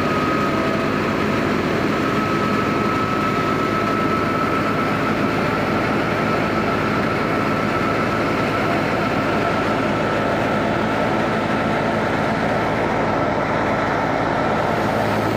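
Wheat thresher running steadily while threshing wheat: a constant loud mechanical din with a steady high whine over a low hum.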